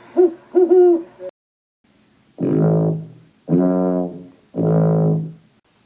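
Three long brass notes, each held just under a second at the same low pitch, trombone-like. They follow a brief voice-like sound at the start.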